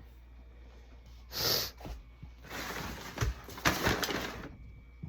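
A trigger spray bottle of glass cleaner sprayed once in a short hiss, followed by about two seconds of rubbing and wiping noise.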